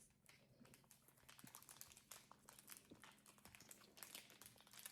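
Faint crinkling and small ticks of a plastic slime pouch being peeled apart by hand, over a low steady hum.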